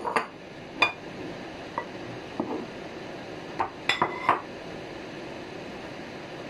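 Ceramic plates and bowls clinking and knocking: scattered single clinks, some with a short ring, and a quick run of several about four seconds in.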